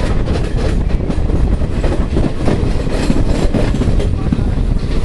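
Passenger train coaches running at speed, heard from the open side of a moving coach: a steady heavy rumble of wheels on rails with scattered clatter, and wind buffeting the microphone.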